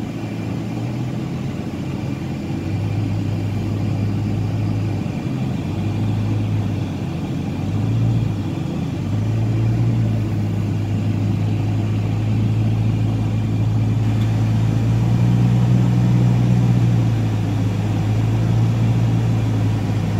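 Car engine and road noise heard from inside the cabin while driving: a steady low drone that dips and swells a few times as the car slows and picks up speed.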